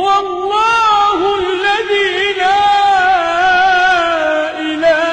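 A single male voice chanting Quran recitation in a long, ornamented melody, holding wavering notes with a short break near the end.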